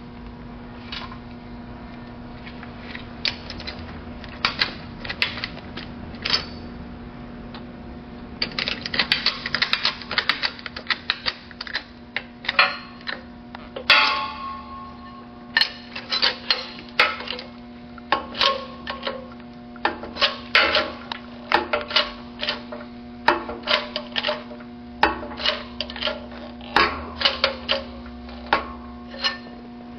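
Shop press at work crushing the top of a Mazda rotary engine's rear oil pressure regulator in its support tool to raise the spring pressure: sharp metallic clicks and clacks over a steady low hum. The clicks are sparse for the first few seconds and come thick and irregular from about eight seconds in.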